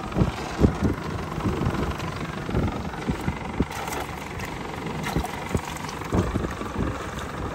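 Yamaha 115 outboard motor idling low, under irregular wind buffeting on the microphone.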